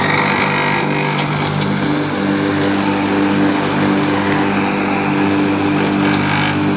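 Corded electric rotary lawn mower running steadily with an even motor hum as it is pushed over grass.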